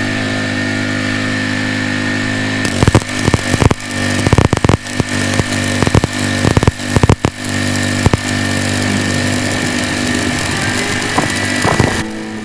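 Engine-driven Miller welder generator with a 13-horsepower Honda gasoline engine running under the load of the arc. A stick-welding arc is struck about three seconds in, crackling and popping irregularly at first, then hissing more steadily until it stops near the end.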